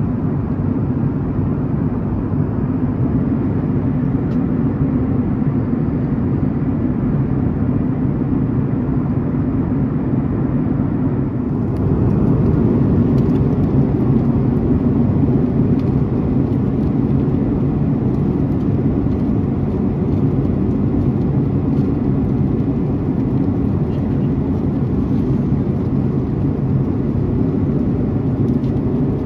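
Steady cabin drone of a Boeing 737-900ER in flight, its CFM56 turbofan and the airflow heard from a window seat over the wing. The drone steps slightly louder about twelve seconds in.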